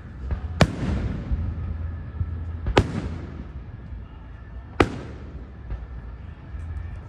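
Aerial fireworks bursting overhead: three sharp bangs about two seconds apart, each trailing off in echo, over a steady low rumble.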